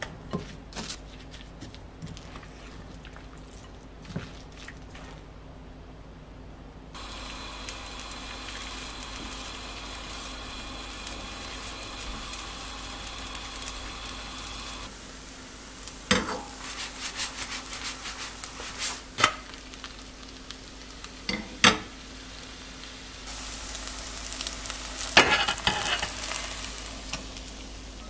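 Chive pancake (buchujeon) batter being stirred with a spoon in a glass bowl, with small clicks. It then sizzles in a frying pan, with a steady hiss, several sharp knocks of a metal ladle against the pan, and a louder burst of sizzling near the end.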